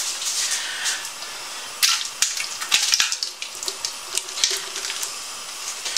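Baked beans in sauce pouring out of a catering-size tin into a large stainless steel stockpot, sliding out with wet slops, and a few sharp clicks of the tin against the pot about two to three seconds in.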